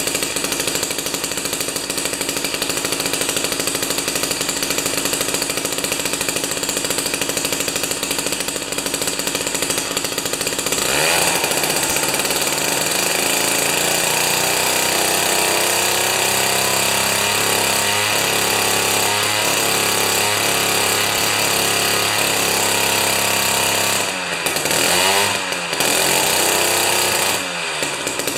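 Jiffy 30 ice auger's 3 HP Tecumseh two-stroke engine running steadily, then revved up to high speed about eleven seconds in and held there. Near the end the revs drop and rise again twice before falling back. It is running well on a replacement spark plug with the carburetor mixture just set.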